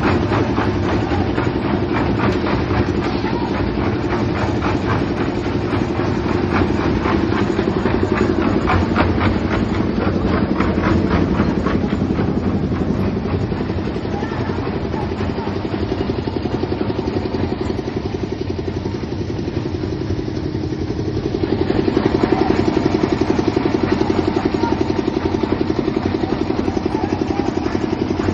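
An engine running steadily with a fast, even clatter, getting louder about twenty-two seconds in.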